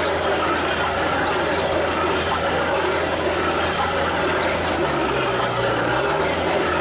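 Highway HHF pressure digger boring into dry ground: the rig's engine runs steadily under load over the churn of the turning drill stem. The engine pitch briefly sags and recovers about five seconds in.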